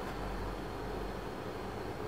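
Steady background hiss with a low hum and no distinct events.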